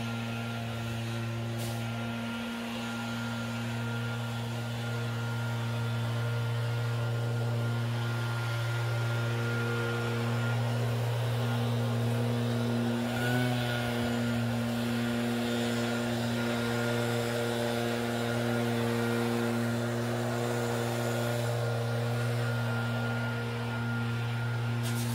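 Two-stroke backpack leaf blower, a RedMax EBZ8550, running steadily at full throttle with a constant engine note.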